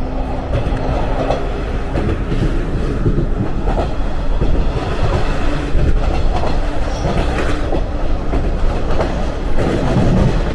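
A 185 series electric express train running, heard through its open side window: a loud steady rumble of wheels on rails and rushing air, with clacks here and there.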